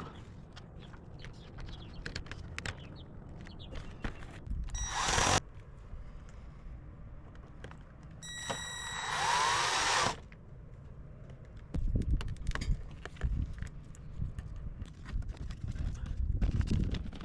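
Power drill run in two short bursts, one of about half a second and a longer one of about two seconds with a motor whine, followed by knocking and handling noises.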